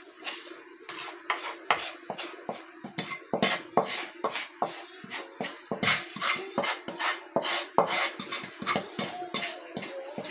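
A wooden spatula repeatedly scrapes and knocks against a frying pan and an aluminium pot as fried vegetables are scraped out into the rice. A steady low hum runs underneath.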